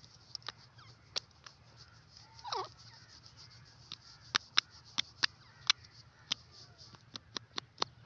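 Grey francolin giving one short, soft call that falls in pitch, about two and a half seconds in. Scattered sharp clicks come throughout, and the loudest of them fall between about four and six seconds in.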